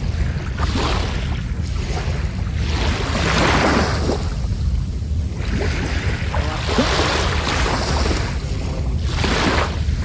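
Sea waves breaking and washing up the shore, four surges that each swell and fall away every two to three seconds, over a steady low rumble of wind on the microphone.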